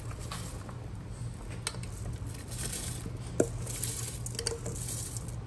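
Wet, washed rice sliding out of a bowl into a pot of liquid with soft squishing and pattering, as a spoon scrapes the last of it out, with a few light clinks of spoon against the bowl.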